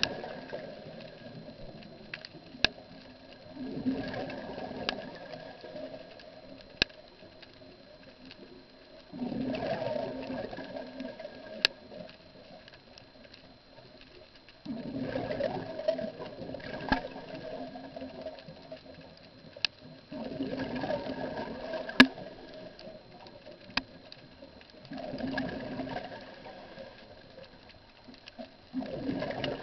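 Scuba diver breathing through a regulator underwater: a rush of exhaled bubbles about every five to six seconds, quieter between breaths, with a few single sharp clicks.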